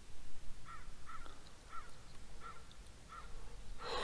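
A bird, crow-like, calling five times in an even series, a little under two calls a second. Near the end comes a short, loud rush of noise.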